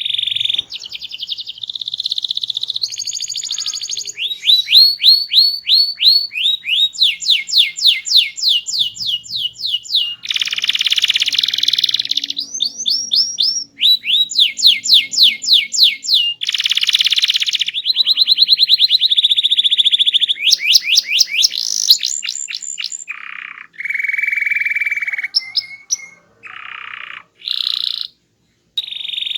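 Domestic canary singing a loud, varied song: fast trills of rapidly repeated sweeping notes alternating with held, buzzing rolls, with a few short breaks near the end.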